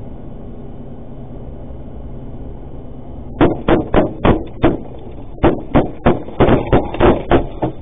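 A rapid volley of about fifteen sharp gunshots, roughly three a second with a short break midway, starting about three and a half seconds in over a steady low rumble.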